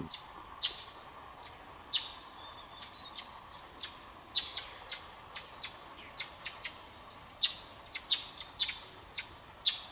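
Birds giving short, sharp, high chirps, a couple a second at irregular intervals, over a faint steady background.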